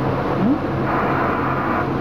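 Diesel engine of the Botchan Ressha replica steam locomotive running steadily with a low hum, mixed with the rumble of the train rolling along the street tramway. A short rising tone comes about half a second in.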